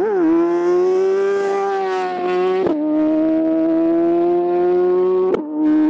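BMW S1000RR inline-four superbike through a Racefit exhaust, passing at full throttle and pulling away, its pitch climbing steadily with two sharp upshifts, about 2.7 s and 5.4 s in. Loud.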